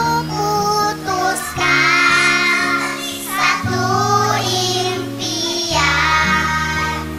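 A group of young girls singing a song together in unison over backing music, whose held low chords change every couple of seconds.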